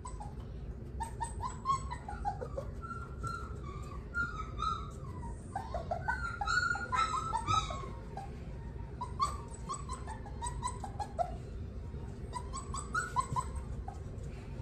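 A young puppy whining and whimpering in many short, high, wavering cries, most intense about halfway through. It is the mild stress of a pup cut off from its food by a barrier.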